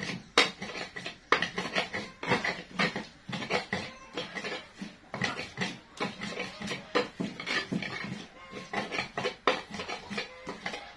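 Stone pestle grinding and knocking spice paste in a stone mortar (Indonesian cobek and ulekan): an irregular run of scraping strokes and sharp clacks, several a second.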